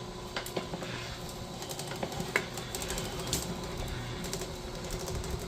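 Scattered light clicks and knocks of scrap copper cable being handled, over a faint steady hum.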